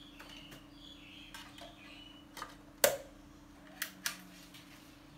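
A CD being handled and clicked onto the spindle of a wall-mounted CD player: light handling noises, one sharp click a little after halfway, then two lighter clicks about a second later.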